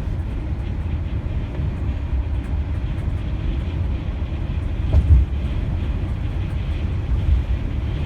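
Steady low rumble of road and wind noise from a vehicle driving at highway speed in strong gusting wind, with one louder low thump about five seconds in.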